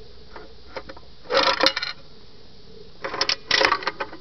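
Coin slide of a 1940s SUN gumball machine worked with a nickel, clattering and rattling in two bursts, about a second in and again near three seconds, as it dispenses two Hershey Kisses.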